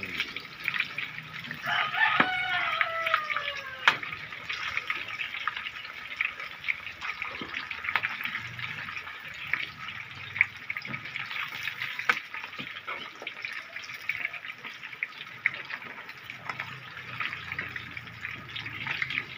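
Pork pieces deep-frying in hot oil, sizzling steadily with dense crackling and sharp pops as the skin blisters and crisps near the end of cooking. A rooster crows once about two seconds in, its call falling in pitch.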